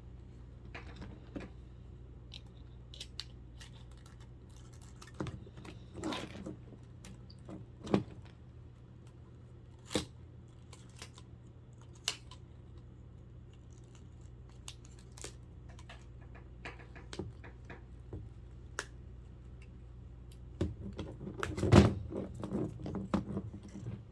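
Scattered clicks, taps and scrapes of small plastic parts and circuit boards being handled as a 1990s Timex weather alarm clock radio is taken apart, with a louder flurry of handling noise near the end. A steady low hum runs underneath.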